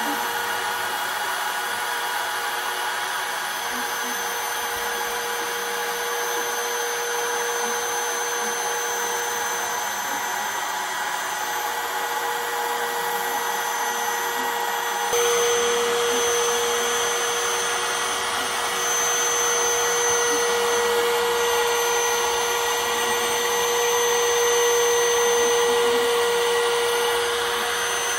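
DeWalt DW660 cutout tool, used as a CNC spindle, running at full speed with a steady high whine while a 1/4-inch three-flute ball-nose end mill cuts a contour into a 2x4. About halfway through the sound jumps a little louder and the whine gets stronger.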